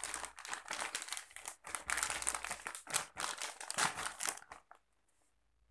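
Plastic packaging, a clear bag and bubble wrap, crinkling and rustling as it is handled and pulled open. The crinkling stops a little before the end.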